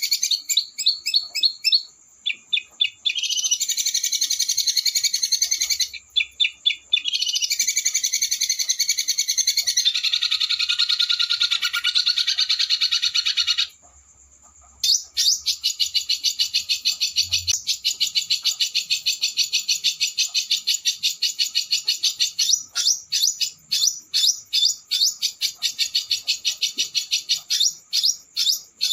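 A small songbird singing fast, harsh rolling trills and rapid runs of sharp 'shooting' notes, high-pitched and continuous apart from a brief pause about halfway through.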